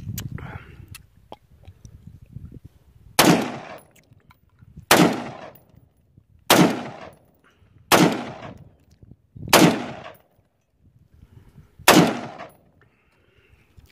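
AR-15 rifle fired six times in slow, aimed single shots, one to two seconds apart, each sharp report trailing off in a short echo.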